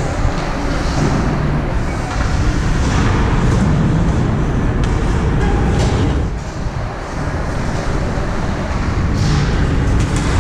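Steady, loud rumbling ambience of a hockey rink, with a few sharp knocks.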